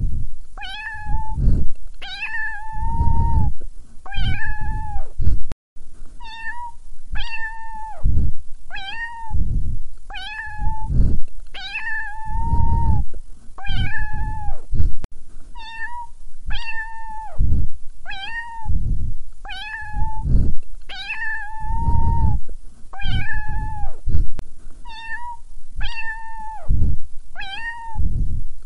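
Looped recording of a cat meowing in a steady rhythm, about one short falling meow a second, over deep thumps like a beat, as in a cat-meow song. A longer meow comes back about every nine to ten seconds.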